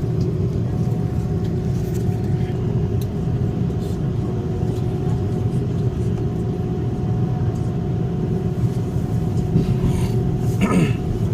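Steady low drone inside the cabin of an Airbus A330-300 airliner, its engines and airflow, with a couple of steady tones running through it.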